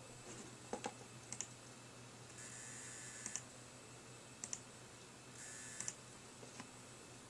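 XFX Pro 750W power supply buzzing with coil whine, a faulty unit. A high buzz comes in two bursts, about a second long a little before halfway and shorter near the end, over a steady low hum, with several sharp clicks in between.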